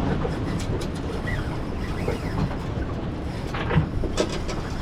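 Steady rumbling and rattling of a small fishing boat on the water, with a few light clicks near the end.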